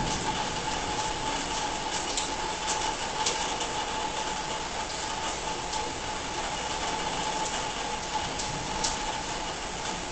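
A steady droning hum with one constant mid-pitched tone, over an even rushing hiss with scattered faint ticks.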